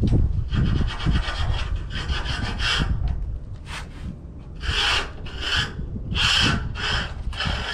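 A hand tool rasping over material in back-and-forth strokes, like sawing or filing, while the furnace wall pieces are being made. The strokes run close together at first, then come as separate strokes about two a second in the second half.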